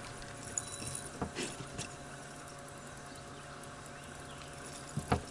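Clicks and knocks from anglers and their gear on a boat deck, a few about a second in and two sharp knocks near the end, over a steady low hum.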